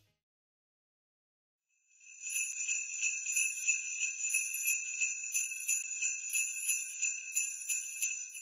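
About two seconds of silence, then sleigh bells shaken in a steady rhythm, about twice a second, with a bright high jingling that carries on to the end.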